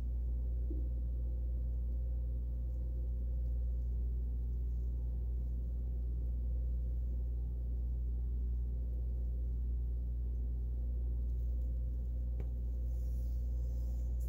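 A steady low mechanical hum with a few faint steady tones above it, unchanging throughout.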